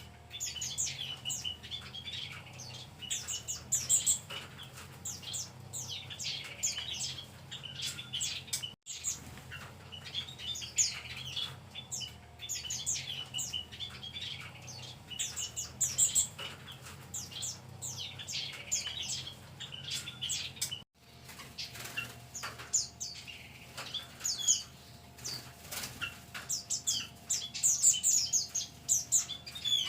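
A mixed flock of small caged songbirds chirping and twittering in bursts of rapid, high chirps, with the fluttering of wings as birds flit about.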